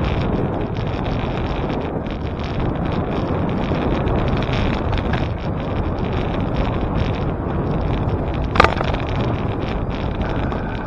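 Wind buffeting the microphone while riding a bicycle: steady, dense rumbling noise. A single sharp knock comes about eight and a half seconds in.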